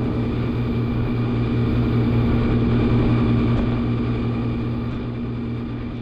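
Motorboat engine running at speed, a steady low drone, with water rushing in the wake; it eases off slightly near the end.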